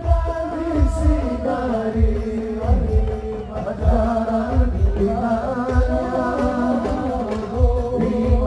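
A male voice singing an Arabic sholawat devotional song through a microphone and PA, in long held notes with gliding ornaments, over deep drum beats about once or twice a second.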